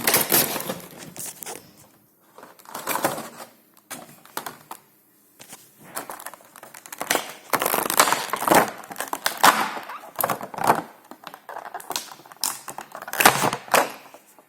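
Funko Pop box packaging being handled, crinkling and rustling in irregular bursts, with short pauses in between.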